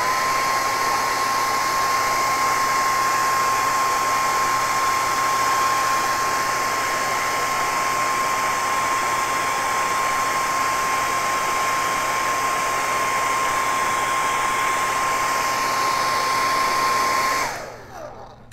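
Handheld hair dryer running: a steady rush of air with a steady motor whine. The whine rises as it switches on and falls away as it is switched off about a second before the end.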